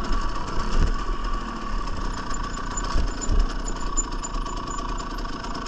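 Husqvarna TE300 two-stroke dirt bike engine running at low revs with a rapid pulsing note, plus a few low thuds about a second in and around three seconds in.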